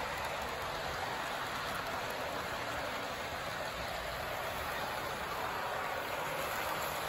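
Model train cars and a diesel locomotive rolling past on the track: a steady, even hiss of small wheels running on the rails.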